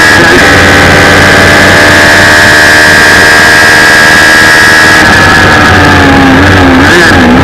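Suzuki Hayabusa inline-four motorcycle engine in an open race car, held at high revs down the straight with a loud rush of wind noise. After about five seconds the engine note drops, with a few quick rises and falls near the end as the car slows and changes down for the next corner.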